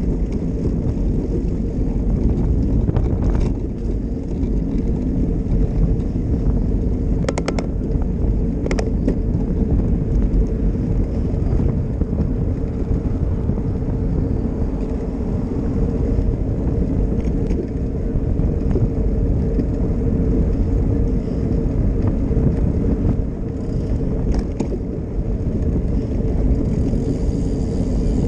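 Steady low rumble of a small vehicle on the move, with wind and road noise on the microphone, a faint steady hum, and a couple of brief clicks about seven and nine seconds in.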